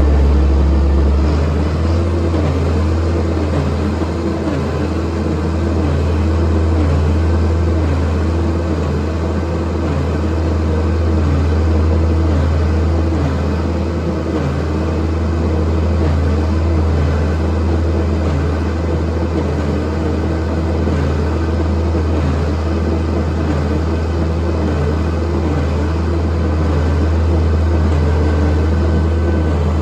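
A farm machine's engine running steadily under load, with a deep hum and a tone above it that wavers up and down about once a second.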